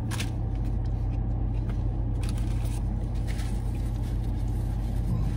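Steady low hum of a parked car's idling engine and air-conditioning blower, heard from inside the cabin, with a few faint clicks over it.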